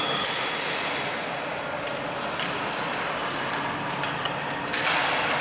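Ice-rink game ambience echoing in a large hall: scattered clacks of sticks on the puck and the ice, with players' feet scuffing the ice. A louder burst of noise comes near the end.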